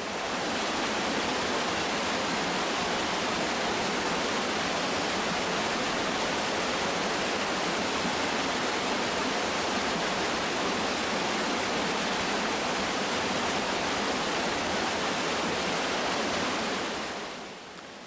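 Waterfall pouring down a rock chute into its plunge pool: a steady, even rush of falling water, fading in at the start and fading out near the end.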